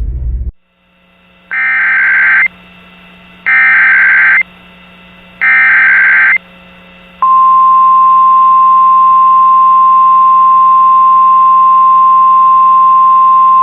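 Emergency Alert System SAME header: three loud one-second bursts of warbling two-pitch data tones, about a second apart. About a second after the last burst comes a long, steady single-pitch attention tone (the 1050 Hz alert tone), which is still sounding at the end. A faint low hum runs underneath.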